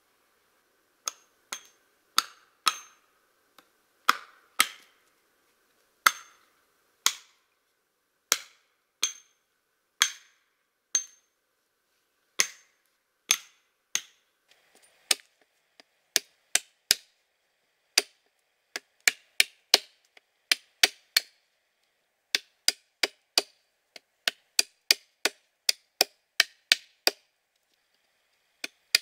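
Hatchet chopping into a wooden pole: sharp separate knocks, at first about one a second, coming faster, two or three a second, in the last third.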